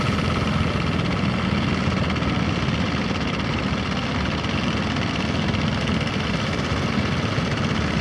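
A fishing boat's engine running steadily at a low, even pitch.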